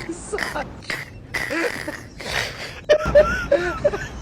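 A person's voice making short wordless sounds, growing louder about three seconds in as a low rumble joins it.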